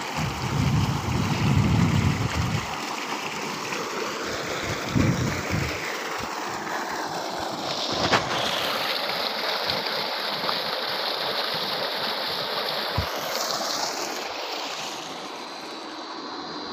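Water gushing out of a tubewell pump's discharge pipe and splashing into a tank, a steady rushing noise that is deeper and heavier in the first few seconds.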